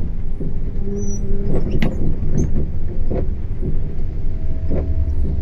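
Steady low rumble of a moving coach's engine and tyres heard in the driver's cab, with irregular sharp taps of hail and rain striking the bus.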